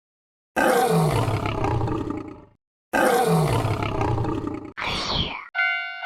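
A cartoon sound effect of a beast's roar, played twice in identical form, each about two seconds long. It is followed by a short falling swoosh and, near the end, a bell-like chime struck about twice a second.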